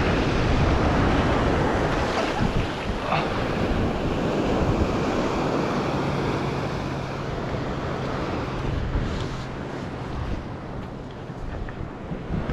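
Ocean surf washing onto a beach, with wind buffeting the microphone.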